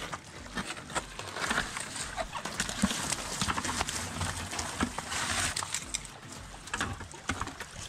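Two plastic buckets of fish, mullet and sheepshead, tipped out onto a beach of crushed shells: fish slapping and sliding out, with shells crunching and clattering underfoot and under the fish. A steady run of sharp clicks and knocks, busiest about a second and a half in and again about five seconds in.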